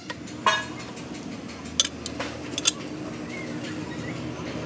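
Long-handled socket wrench on a tractor wheel's nuts: a handful of sharp metal clinks over a steady low hum.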